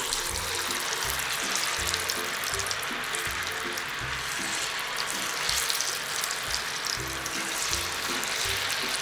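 Handfuls of potato-and-peanut bhajiya batter sizzling in hot oil as they are dropped in for deep-frying, a steady hiss full of fine crackles. Background music with a beat plays underneath.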